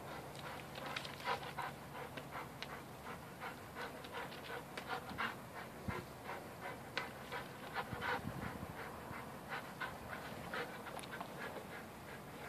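A young pit bull breathing hard in quick, even breaths while it hangs by its jaws from a rope toy.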